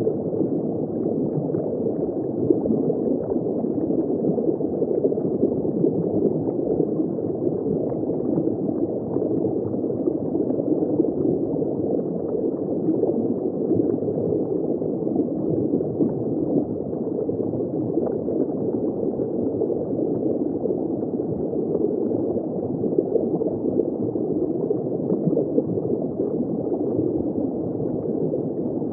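Steady gurgling of circulating water in a saltwater reef aquarium, an even, unbroken flow of moving, bubbling water.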